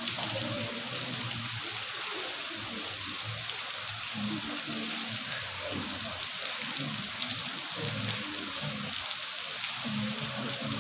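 A steady, even hiss like falling rain, with faint low sounds beneath it.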